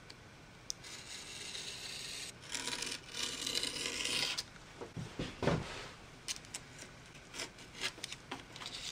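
Utility knife blade scoring thin gasket material along the edge of a metal casting: a scratchy scraping for about three seconds, then a knock and scattered light clicks.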